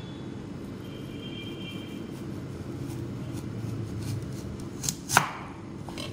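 Chef's knife slicing through a raw turnip and knocking on a wooden cutting board: a few faint cuts, then two sharp knocks of the blade on the board about five seconds in.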